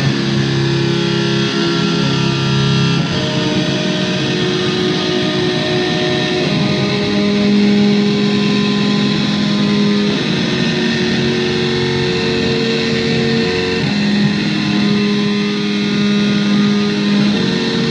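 Senpuukin, an electric-fan instrument, playing a slow sequence of held, buzzy chords. The chord changes about every three to four seconds.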